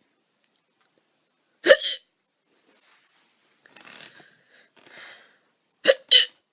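A woman hiccuping loudly: one sharp hiccup about two seconds in, then two more in quick succession near the end.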